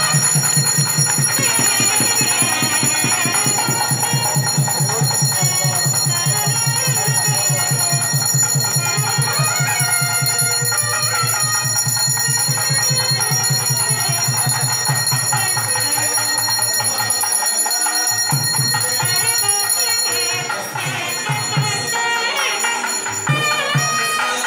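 Temple bells ringing steadily over music with a fast, even beat, the ringing that goes with the aarti lamp offering. The beat stops about seventeen seconds in, and the bell ringing a few seconds later, leaving the music and melodic sounds.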